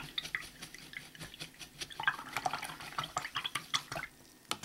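A paintbrush being swished in a plastic tray of rinse water, with small splashes and a scatter of light clicks against the container.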